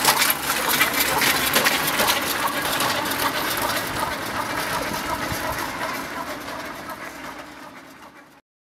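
A fast, dense mechanical rattling clatter that starts suddenly, slowly fades out and stops shortly before the end.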